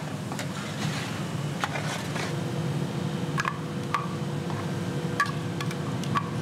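Scattered light clinks and scrapes of steel utensils against a wide metal pan as thick chili masala paste is worked in ghee, over a steady low kitchen hum.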